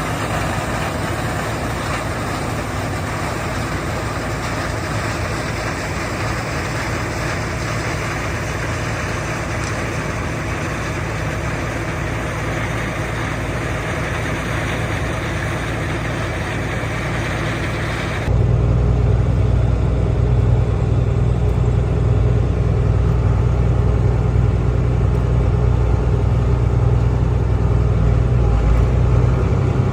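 Combine harvester engine and machinery running steadily. About 18 seconds in, the sound cuts abruptly to a louder, lower engine drone.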